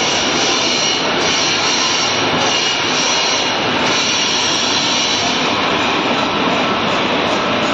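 Wood-fired industrial furnace running: a loud, steady rushing noise with faint high whining tones, unchanging throughout.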